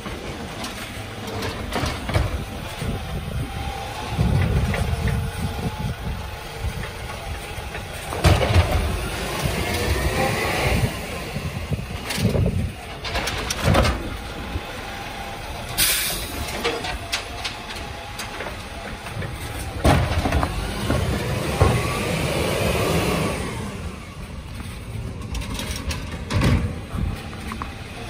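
Side-loading garbage truck's diesel engine running while its automated arm grips a wheelie bin, lifts it and tips it into the hopper, with a whine that rises and falls as the arm moves, many clanks and knocks of the arm and bin, and a short hiss of air about halfway through.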